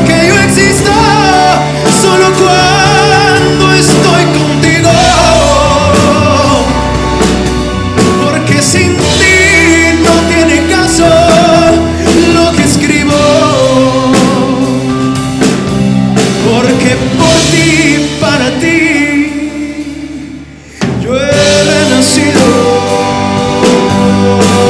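Live band playing a slow ballad, with drum kit and electric guitars under a man singing. The music thins and fades about twenty seconds in, then the full band comes back in suddenly.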